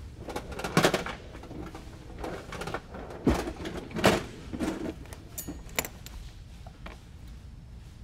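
Rummaging by hand: small hard parts and containers being handled, with an uneven run of knocks, clicks and rustling.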